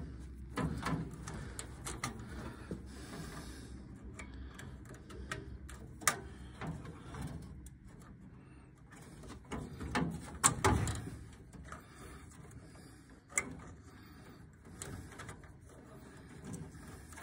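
Furnace wiring being handled by hand: the wire bundle rustles and spade connectors click as the neutral leads are pulled off and pushed onto a control board's terminals, with a few sharper clicks along the way.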